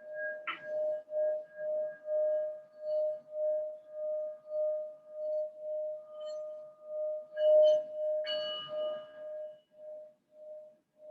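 Singing bowl ringing, its steady tone pulsing in a slow wobble. It is struck about half a second in and again near eight seconds, then fades toward the end.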